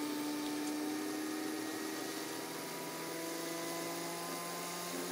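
Bedini window motor, a rotor of six neodymium magnets spinning inside a wound coil, running with a steady hum and a higher whine that creeps up in pitch as its supply voltage is turned up from 12 volts toward 17.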